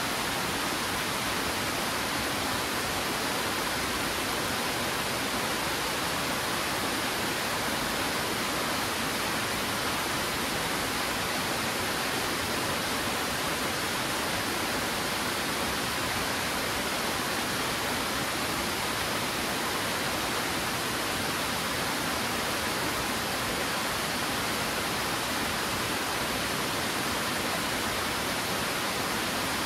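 Twin Falls, a waterfall of two streams cascading down rock ledges, rushing steadily in an even, unchanging roar of falling water.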